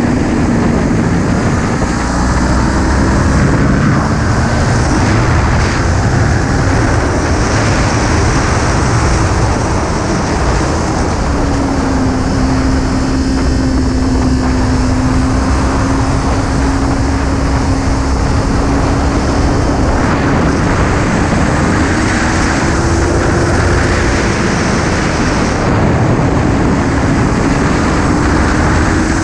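Kawasaki Ninja 400's parallel-twin engine running at steady cruising revs, its note rising and falling gently through the bends, under heavy wind noise from riding at speed.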